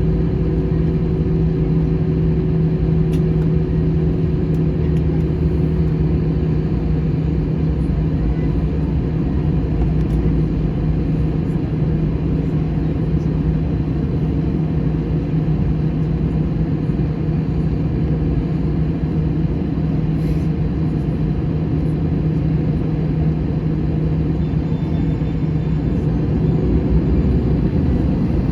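Airbus A321 jet engines heard from inside the passenger cabin: a steady drone with a constant low hum, getting a little louder near the end.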